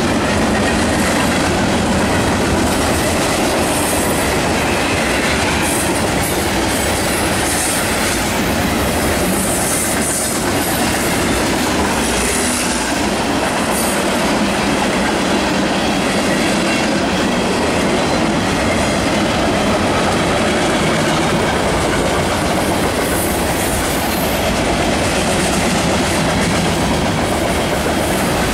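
Freight cars of a long mixed train rolling past at close range: gondolas, flatcars and covered hoppers, their steel wheels running over the rails in a loud, steady rumble and clatter.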